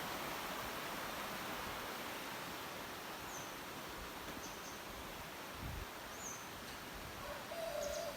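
Steady rush of a creek, with a few short high bird chirps spread through and a lower, longer bird call near the end.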